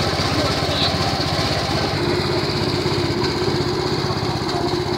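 Small petrol engine of a motorised sugarcane juice press running steadily at an even, fast idle-like beat. A steady higher hum joins about two seconds in.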